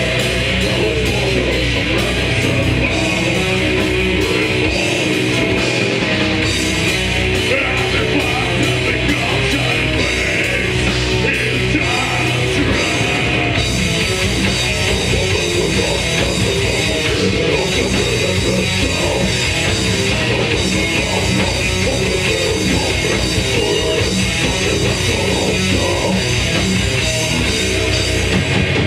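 Death metal band playing live: distorted electric guitars, bass and drums, loud and continuous.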